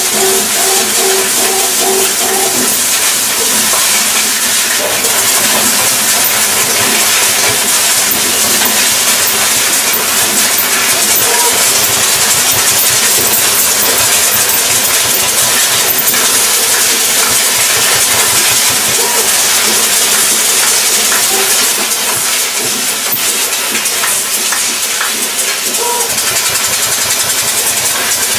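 Laser cutting machine hissing steadily as its cutting head's assist-gas jet cuts sheet metal, with a quick run of short pitched pulses in the first couple of seconds.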